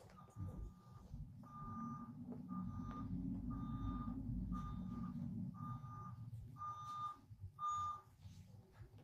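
Electronic beeping: one steady tone repeating about once a second, eight beeps in all, over a low rumble.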